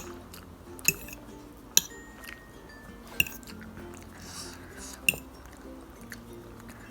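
Eating instant noodles from a bowl: about four sharp clicks of a utensil against the bowl, spread a second or more apart, with chewing between them. Faint music plays underneath.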